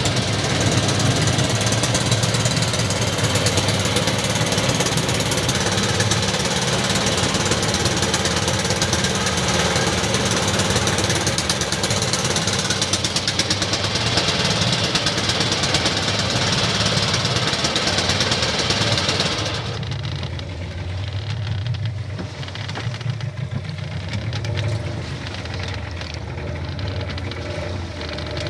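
Fishing boat's engine running steadily with a knocking beat. About two-thirds of the way through, the sound suddenly becomes quieter and duller, and a low thrum carries on.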